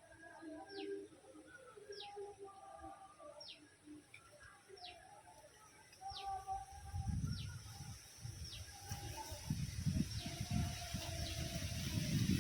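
Wild birds calling: one repeats a short, quick falling whistle about once a second, with other birds' held notes lower down. From about halfway a low rumble comes in and grows, becoming the loudest sound near the end.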